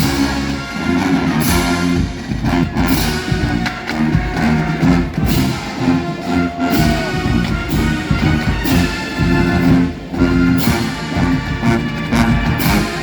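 Marching band playing: brass holding sustained chords over drums, with loud cymbal crashes about every second or so.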